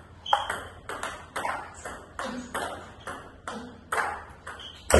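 Table tennis rally: the celluloid ball clicking sharply off the rubber-faced paddles and the table top in quick alternation, about three hits a second.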